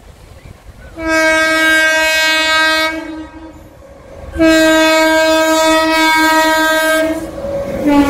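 Indian Railways locomotive horn sounding two long, steady blasts, each about two to three seconds. The approaching train's running noise grows louder near the end.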